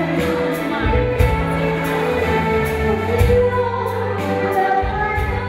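A woman singing a song into a microphone from sheet music, holding long notes, over instrumental accompaniment with a light, steady beat.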